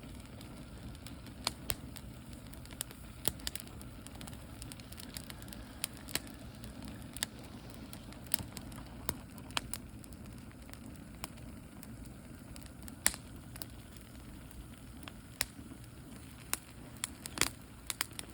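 Wood fire crackling, with sharp pops at irregular intervals over a steady low rumble of wind.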